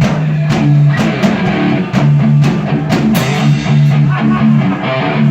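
Live rock band playing: distorted guitars holding low notes over a steady drum beat of about two hits a second.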